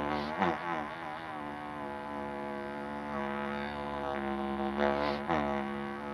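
Spiral mango-wood didgeridoo played as a continuous drone, its overtones sweeping in quick vowel-like shifts a few times, notably about half a second in and again near the five-second mark.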